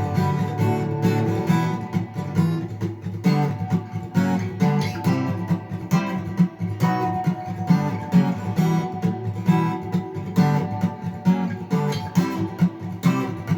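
Acoustic guitar strummed in a steady rhythmic chord pattern: the instrumental intro, with no singing.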